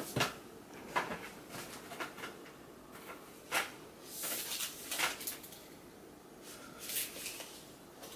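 A few soft scattered clicks and knocks, with a brief rustle about halfway through.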